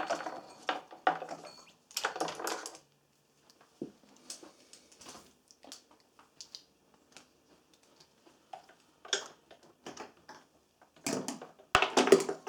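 Light clicks, taps and rustles from handling multimeter probe leads against a small diode, scattered irregularly with a denser patch of handling near the start and again near the end.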